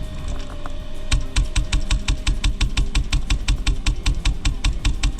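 Airsoft gun firing a long automatic burst, sharp even shots at about seven a second, starting about a second in and still going at the end.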